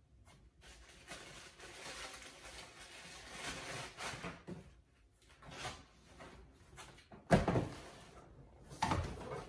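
Cardboard shoe boxes and their paper packing being handled: rustling and scraping with short pauses, then two loud thuds, about seven seconds in and a second and a half later, as boxes are set down on the table.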